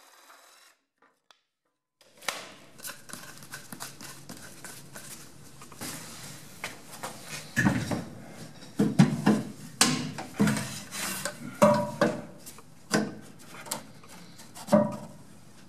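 A DeWalt jigsaw cutting a wooden board runs for a moment and stops. After a short gap, the wooden pattern board rubs, scrapes and knocks against the steel frame rails as it is pushed and worked into place for a test fit, the sharper knocks coming mostly in the second half.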